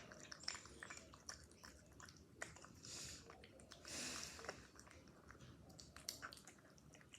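Cat eating, faint chewing with many small wet clicks and smacks.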